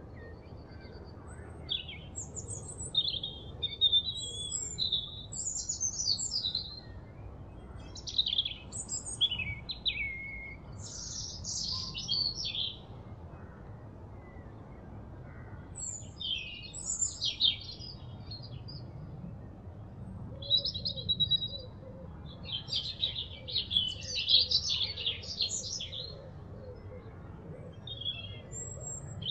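Birdsong: short phrases of quick chirps and trills, starting and stopping with pauses between them, over a faint steady low background noise.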